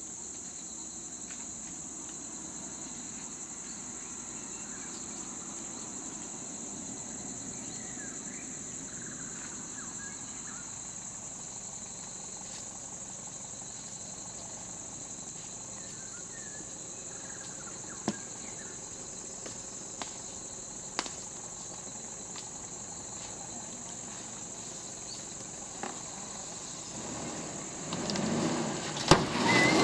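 Steady, high-pitched insect chorus, with faint chirps and a few sharp clicks in the second half. A vehicle engine grows loud near the end.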